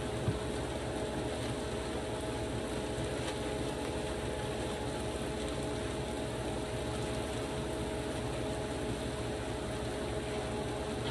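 A steady motor hum holding two constant tones over an even low rush, with one faint click just after the start.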